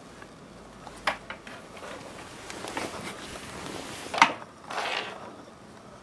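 A small plastic tube knocking and sliding on a wooden floor as a kitten bats at it, with a few sharp knocks, the loudest about four seconds in, and short scuffling rustles between them.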